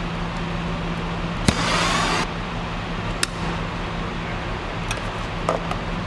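A steady low machine hum, with a short burst of hiss about a second and a half in and a few sharp clicks and light ticks.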